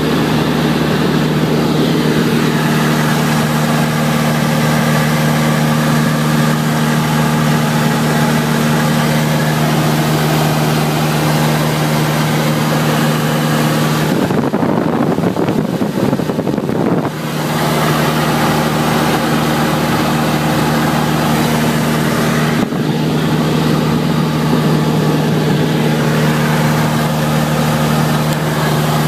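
Cessna 172's piston engine and propeller droning steadily in flight, heard inside the cabin. About fourteen seconds in, a rushing noise covers the drone for about three seconds.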